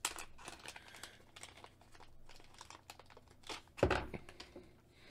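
Thin plastic bag crinkling and rustling in the hands as connectors are worked out of it, with one louder knock about four seconds in.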